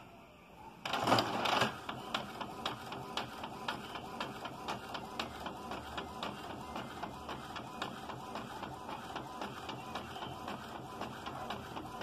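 Epson L380 ink-tank inkjet printer printing a page. About a second in there is a loud burst as it starts up, then a steady run of quick clicks as it prints.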